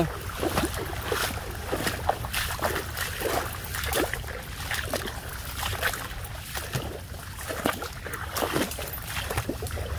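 Footsteps wading through shallow water over mud: an irregular run of splashes and squelches from several people walking, over a steady low rumble.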